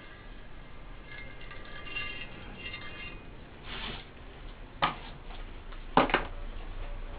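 A short scrape, then sharp clicks and knocks of a hand scraper being handled and put down beside a loudspeaker frame, one click just before five seconds in and a quick double click about a second later. Faint high ringing tones are heard during the first three seconds.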